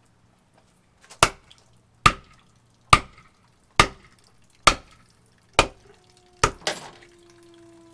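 Wooden block pounding the handle of a tire-plug rasp tool, driving it into a puncture in a heavy off-road tire: seven sharp strikes about one a second. Near the end a faint tone slowly falls in pitch.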